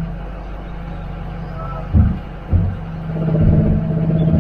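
Engine of a heavy RV running at low revs, with two short heavy thumps about two seconds in, then the engine note growing louder.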